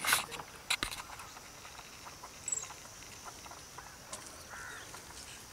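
Quiet outdoor background with a short rustle at the start, a few sharp clicks just under a second in, and a brief high chirp about halfway through.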